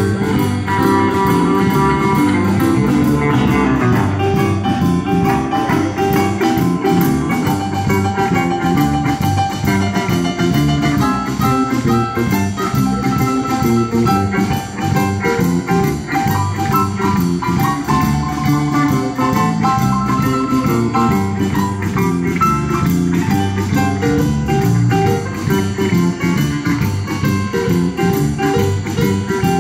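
A live band playing an instrumental passage: electric guitar over bass guitar, drum kit and keyboard.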